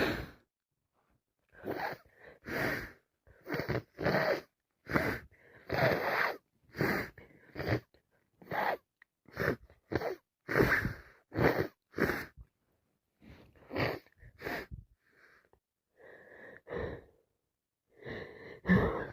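A woman with a heavy cold takes short, gasping, hitching breaths, about two a second, in a long sneeze build-up. It opens on the tail end of a louder burst, the end of a sneeze.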